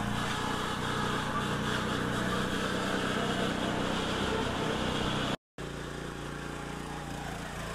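420cc Predator single-cylinder four-stroke engine running steadily at speed as the homemade mini 4x4 drives down a gravel driveway. The sound cuts out briefly about five seconds in, then the engine is heard again, a little quieter.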